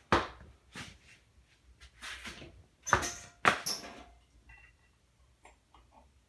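Handling noises from reassembling a ceiling fan's switch housing: a run of knocks, scrapes and clatters, loudest about three seconds in, then a few faint ticks.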